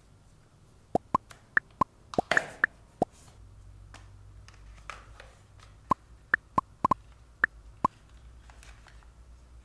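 Handling an Apple leather phone case and its cardboard box: two quick runs of sharp taps and clicks, about eight in each, with a brief rub of cardboard sliding in the first run.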